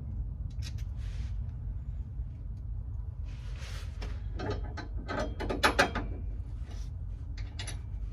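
Metal parts and hand tools clinking and scraping during rear sway bar installation under a car, with a quick run of sharp metallic clicks about five seconds in, over a steady low hum.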